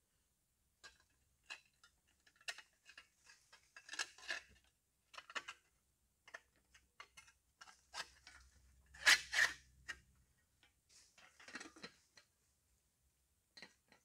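Irregular small clicks and metallic clinks as a metal kettle and a steel grill grate are handled and set over a wood fire in a pit. The loudest is a pair of sharp clinks about nine seconds in, with a dull knock under them.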